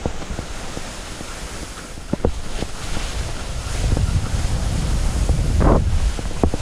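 Wind rushing over the camera microphone as skis slide fast down a snow slope, swelling as the skier picks up speed through turns. A few brief sharp clicks are heard about two seconds in and near the end.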